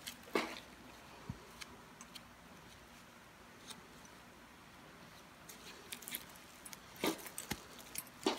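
Faint handling sounds of a knife and nitrile-gloved hands skinning out a wolf foot: scattered small clicks and soft wet squishes, with a cluster of sharper clicks near the end.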